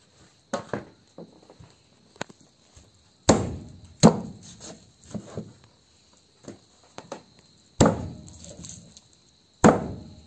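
A large knife chopping chicken meat and bone on a wooden board. There are a few hard chops at irregular intervals, with lighter knocks in between.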